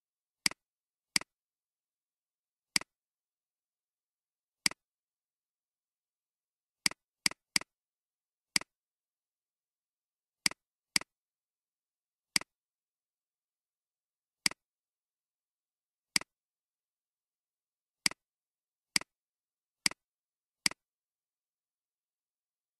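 Computer mouse clicks: about seventeen single, sharp clicks at irregular intervals, some close in pairs or threes, with silence between.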